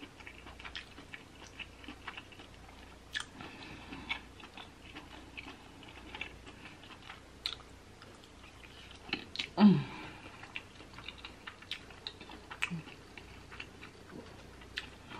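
A person chewing a mouthful of creamy alfredo pasta close to the microphone: soft, wet mouth clicks and smacks throughout. There is one short hummed 'mm' about two-thirds of the way through.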